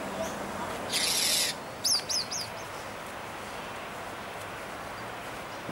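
Bird calling: three quick, high chirps, each falling in pitch, about two seconds in, just after a short loud burst of high hiss.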